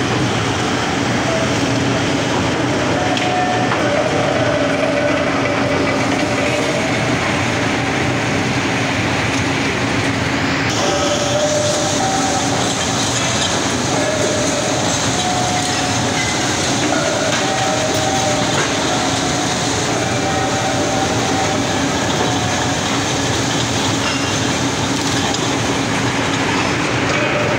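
Hot-rolling mill running: electric-motor-driven roll stands pass a red-hot steel bar through the rolls and along the steel guide trough. It makes a loud, steady industrial din with a few humming tones that shift in pitch, and about ten seconds in a higher hiss grows louder.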